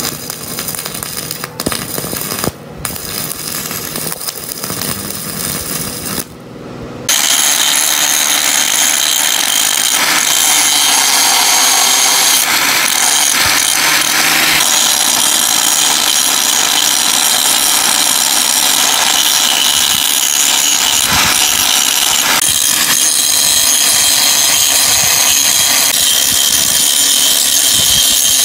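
Stick-welding arc crackling on steel plate in short runs with brief breaks; after about seven seconds an angle grinder with a flap disc takes over, grinding down the steel welds with a loud, steady high whir.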